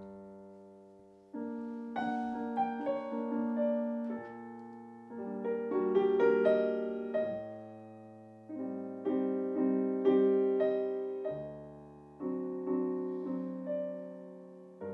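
Slow solo piano on a digital stage piano: full chords struck one after another, about every one to two seconds, each left to ring and fade, with low notes beneath, as the opening of a jazz ballad.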